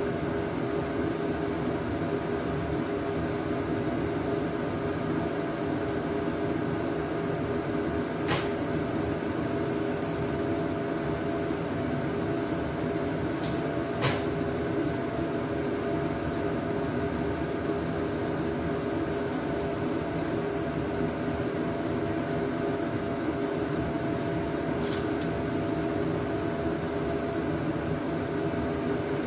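Steady hiss and hum of lidded pots cooking on the stove burners, with three light clicks spread through.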